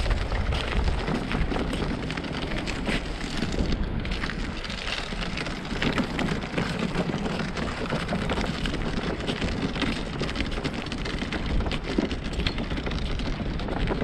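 Wind buffeting the microphone: a steady low rumble with a fine, constant crackle.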